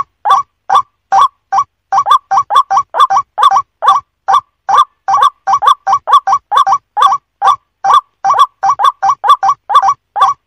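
White-breasted waterhen calling: a fast, unbroken series of short harsh notes, many of them in pairs, about three to four a second.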